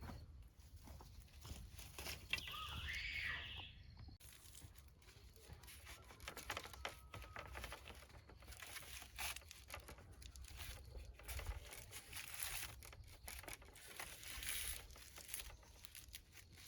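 Rustling and crackling of handled dry material, with many scattered light clicks and knocks. A short, rapidly pulsing high trill sounds about two to three seconds in.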